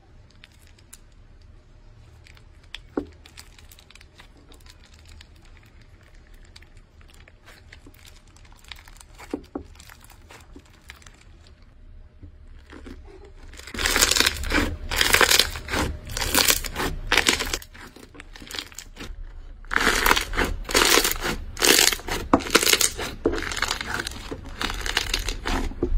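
Foam-bead slime (floam) being squished and pressed by fingers. At first there are faint soft squishes with the odd click. About halfway through come loud crackling pops in dense runs as the beads are pressed, with a short lull between two runs.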